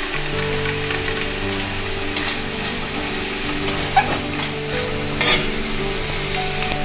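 Onion-tomato spice masala frying and sizzling in an aluminium kadai, with a metal spatula stirring and scraping the pan a few times. The masala is being cooked down until the oil separates.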